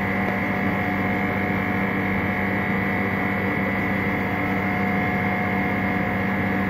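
Steady mechanical hum of running workshop equipment, with a few steady tones held unchanged throughout.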